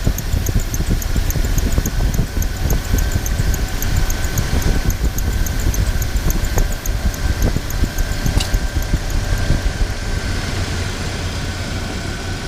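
Car engine idling with an aged, hardened drive belt chirping in a fast, high rhythm; the chirping fades out about halfway through.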